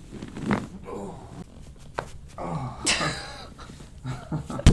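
Sharp cracks of spinal joints during a chiropractic back adjustment: a thin crack about two seconds in and a louder, sharper one near the end. Between them a person's voice makes short vocal sounds and a breathy exhale.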